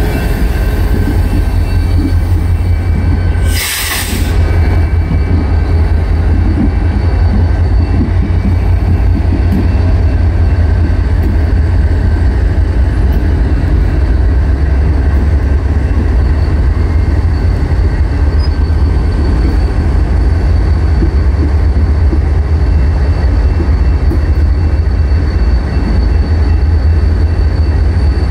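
CSX diesel locomotives running and rolling slowly past, with a steady low engine rumble, while the ex-Guilford 507 is added to the consist. A brief hiss comes about four seconds in.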